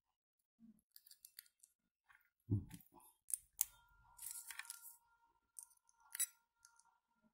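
Multimeter test probes clicking and scraping against the metal legs of a power transistor. From about three and a half seconds in, a faint steady tone from the multimeter's buzzer sounds while the probes make contact, the sign that the transistor junction conducts.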